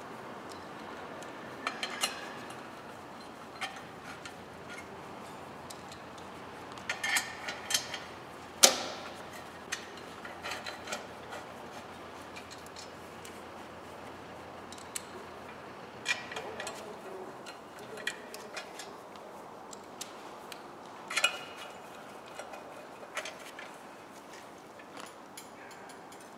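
Scattered metallic clicks and clinks of hand tools and bolts as a clutch pressure plate and disc are fitted to an engine's flywheel. The clicks come in small clusters, with one sharp click about nine seconds in.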